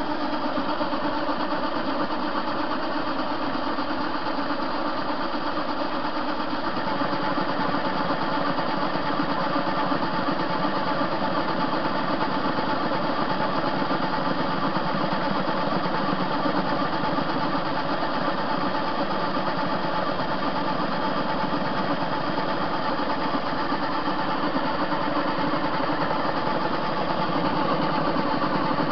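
TV-16 metal lathe, its three-phase motor run off a capacitor, running steadily under power feed while the cutter turns down a metal bar. A continuous machine whine.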